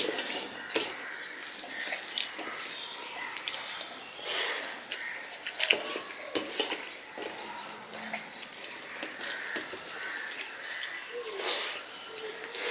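Close-up wet chewing and lip-smacking of a person eating rice by hand, with fingers squishing and mixing the rice on a steel plate. It comes as irregular sharp, wet clicks, the loudest about halfway through.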